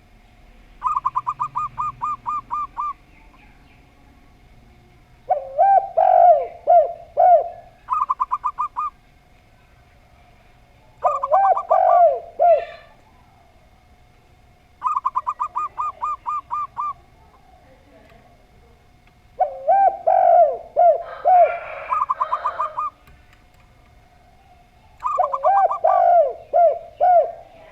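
Zebra dove and spotted dove cooing in turn. The zebra dove gives quick, even runs of about ten short, higher notes. The spotted dove answers with slower, lower, looping coos. There are about six bouts, some of them overlapping.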